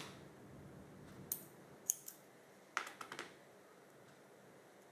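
A few light, sharp clicks and taps of small craft supplies being picked up and handled on a work table.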